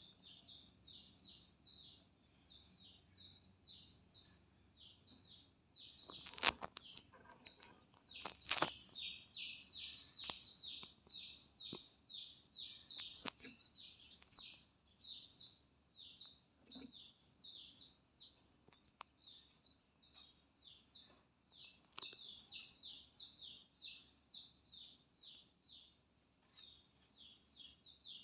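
Chick peeping steadily and rapidly, short falling peeps about three a second. A couple of sharp clicks sound about six and eight seconds in.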